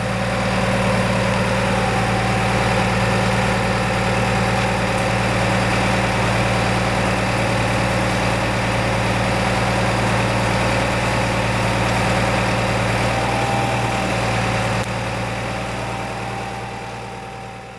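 Feed truck's engine running steadily with a constant low hum while it unloads feed into a storage bin. The sound fades out over the last couple of seconds.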